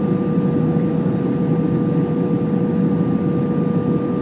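Steady cabin noise inside an Airbus A320 in flight: an even low rush of engines and airflow, with two steady hums running through it, one in the middle range and a fainter, higher one.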